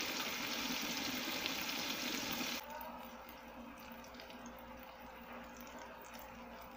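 Tambakol fish steaks sizzling in oil on an electric grill plate, with rice boiling under a glass lid beside them. About two and a half seconds in the sound cuts suddenly to a quieter sizzle with scattered crackles, as the fish is later browned.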